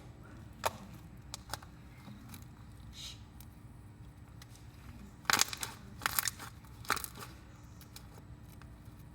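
Homemade glitter slime being squished and pressed by hand, giving sharp clicks and pops. A few scattered clicks come first, then a louder run of pops from about five to seven seconds in.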